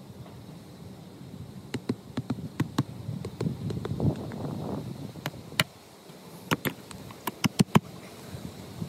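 A dozen or more sharp, irregular taps and knocks as pegs are knocked into the lawn to hold a robotic mower's magnetic guide wire, with a stretch of rustling and scraping in the middle.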